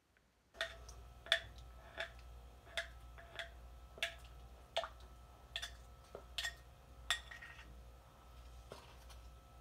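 Faint sharp taps and clicks on a mixing bowl, about one every two-thirds of a second, as barbecue sauce is tipped and knocked out of it onto a pan of ribs. A steady low hum sits behind them.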